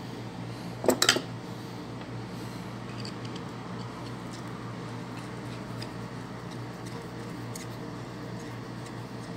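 Handling noise from a screwdriver and a lamp socket: a quick clatter of two or three knocks about a second in, then a few faint small clicks as the screwdriver works a terminal screw on the socket. A steady low hum runs underneath.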